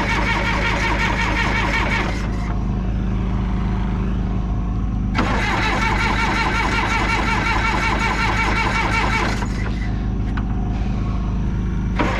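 The diesel engine of a 1976 John Deere 450C bulldozer being cranked by its starter in three bursts of a few seconds with short pauses between, turning over evenly without catching. It is not firing and puts out no white smoke, a sign that no fuel is reaching it.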